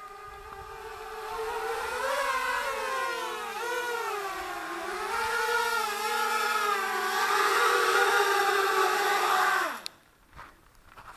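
An inverted-motor mini hexacopter's brushless motors and propellers whine, the pitch wavering up and down as the throttle changes while it comes down and lands. Just before the end the motors spin down with a quick falling pitch and stop.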